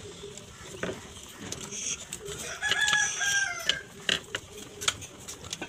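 One loud pitched animal call, a little over a second long near the middle, rising, holding and then dropping in pitch at its end. Around it come a few light clicks of the plastic emergency-light casing being handled and pressed together.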